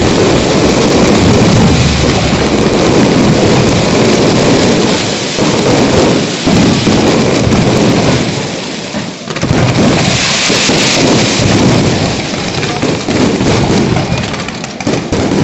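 Dense barrage of fireworks: loud, overlapping booms and crackle with no gap between bursts, easing briefly about nine seconds in.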